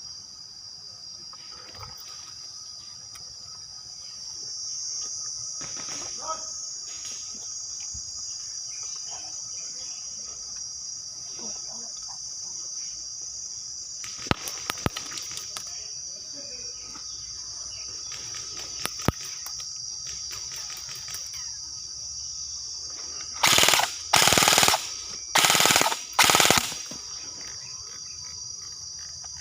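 Airsoft guns firing: scattered faint pops in the middle, then four short full-auto bursts close by, a second or so apart, near the end. A steady drone of insects runs underneath.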